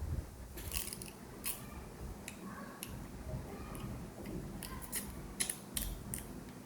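Crab shell being cracked and broken apart, about a dozen sharp, irregular clicks and cracks.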